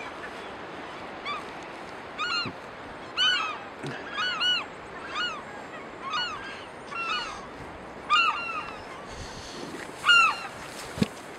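Birds calling over and over: short arched honking calls, often two or three in quick succession. A brief low thump near the end.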